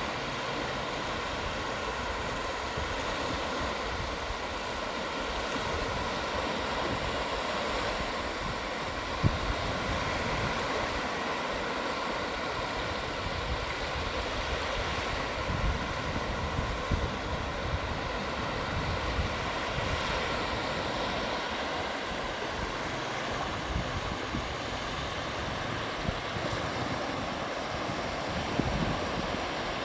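Sea waves breaking and washing onto the beach in a steady rush of surf, with wind buffeting the microphone.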